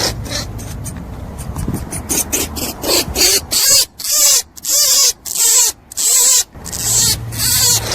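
Rabbit calling: a run of short calls, each rising then falling in pitch. They start faint and scattered, then from about two seconds in come louder and regular, roughly two a second.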